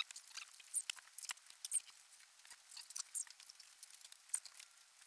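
Light, irregular metal clicks and scrapes of engine parts being handled: pistons with connecting rods and piston rings picked up and set down on cardboard.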